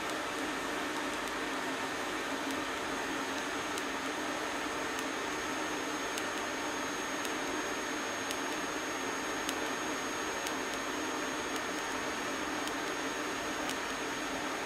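TIG welding arc running steadily as a steel patch is welded onto a motorcycle petrol tank, filler rod fed by hand: an even hiss and buzz with a faint tick about once a second.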